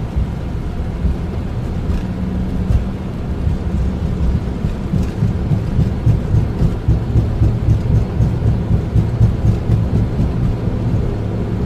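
Boeing 767-300ER on its takeoff roll, heard from the flight deck: a loud, heavy rumble of the engines at takeoff thrust and the wheels running down the runway, shaken by constant small jolts and rattles.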